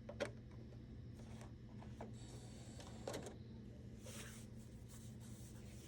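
A disc being loaded into an Xbox One console to test its repaired optical drive: a few faint clicks and short rustles over a steady low hum.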